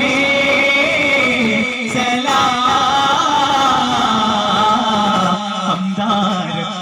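Amplified male singers holding a long, wavering chant-like melody of a daf muttu song, with daf frame drums beaten in a quick steady rhythm underneath.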